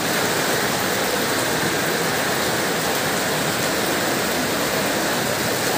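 Heavy rain pouring, a steady even hiss without breaks.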